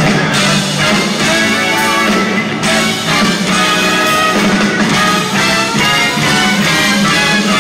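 Live band music heard from the arena stands: a horn section with saxophone and trombone playing riffs over drums and bass guitar, with the hall's echo.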